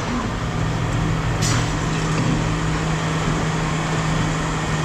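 Steady low machine drone over a constant background noise, with a short hiss about a second and a half in.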